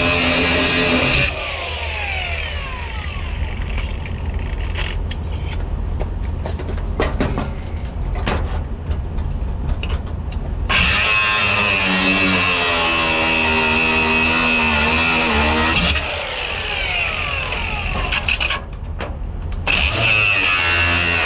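Cutoff wheel cutting away the old toolbox latch and its rivets: it runs with a high whine, is switched off about a second in and spins down, then, after some clicks and knocks of handling, runs again from about 11 s to 16 s, its pitch shifting as it bears on the metal, spins down again, and starts once more near the end.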